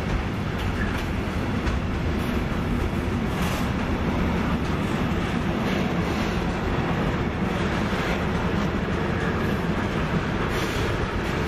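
Freight train of container wagons rolling past, a steady rolling noise of wheels on rail with occasional clicks as the wheels cross rail joints.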